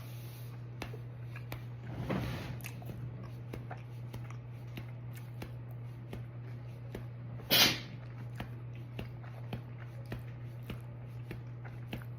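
Eating sounds: many small chewing clicks over a steady low electrical hum, with a breathy noise about two seconds in and a short, loud noise burst a little past halfway.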